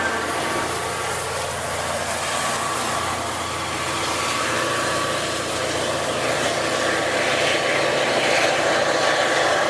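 MBTA commuter rail diesel locomotive running steadily as it passes at the rear of its train and pulls away, its engine drone mixed with wheel and rail noise.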